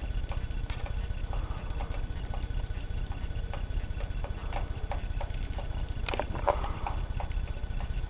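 Pet budgies and a cockatiel pecking at their food: scattered small clicks and brief chirps over a steady low rumble.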